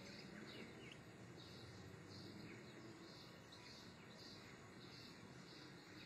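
Faint, short bird calls repeating about one and a half times a second, over low steady outdoor background noise.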